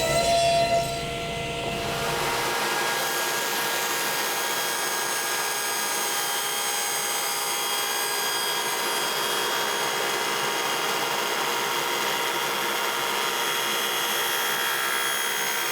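Power saw running steadily while cutting wood, its motor giving a steady whine made of several tones. A heavier low rumble in the first two seconds or so drops away.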